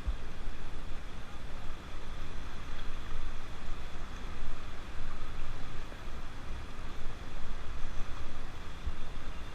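A vehicle on the move: a steady road-and-engine noise with an uneven low rumble.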